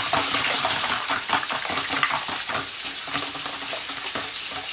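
A whisk beating raw eggs in a stainless steel mixing bowl, its wires scraping and tapping against the metal in rapid, continuous strokes.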